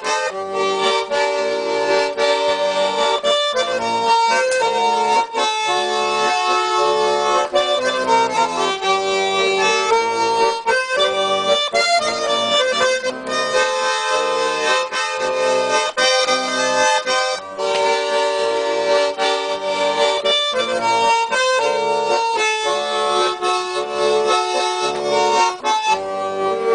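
Instrumental break of a Russian chanson song: a garmon (Russian button accordion) plays the melody in held chords over a steady rhythmic backing, with no singing.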